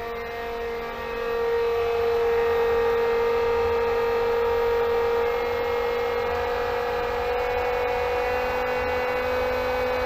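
Pentair SuperFlo 1.5 hp variable-speed pool pump running near full speed: a steady motor whine made of several tones that rises slowly in pitch as the speed is stepped up toward 3,000 RPM. It grows louder about a second and a half in.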